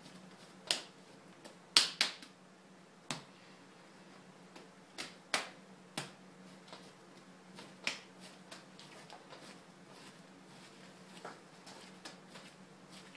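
Irregular sharp slaps of wet clay being spiral-wedged by hand on a wooden table, loudest around two seconds in, over a faint steady hum.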